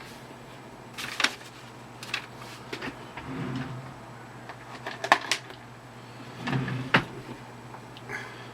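Rummaging in search of a pen: a handful of sharp knocks and clicks as objects are moved about and set down, a second or more apart.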